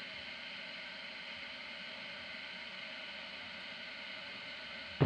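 Steady faint hiss, then one sharp knock near the end as a small battery is set down on a hard tabletop.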